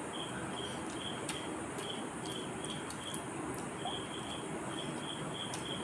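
Steady background hiss, with a faint high-pitched chirp repeating about twice a second and a few light clicks.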